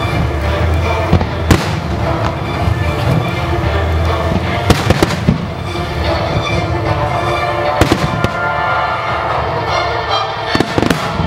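Fireworks display: aerial shells bursting in sharp bangs about every three seconds, over steady music played for the show.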